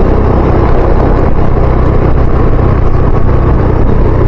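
Motor scooter's engine running steadily at cruising speed, a constant low drone under a steady rush of wind and road noise.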